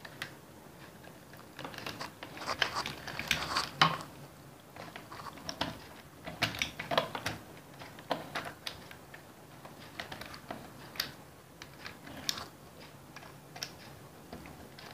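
Irregular small clicks, taps and scrapes of hands pushing wire ends into the screw terminals of a plastic switch-and-socket board and tightening the terminal screws with a screwdriver.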